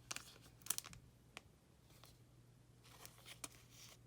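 Faint plastic rustling and a few light clicks of a trading card being slid into a plastic card sleeve, over a low steady hum.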